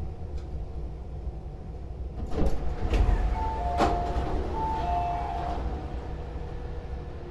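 MTR Airport Express CAF train's sliding passenger doors working at a station stop: a heavy clunk about two and a half seconds in, then a two-note electronic door chime sounding twice, over the low rumble of the carriage.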